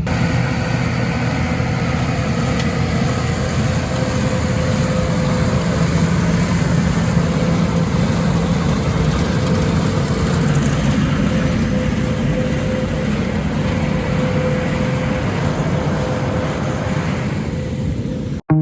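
Tractor engine running steadily with farm machinery: a loud, even drone with a constant hum, cutting off suddenly near the end.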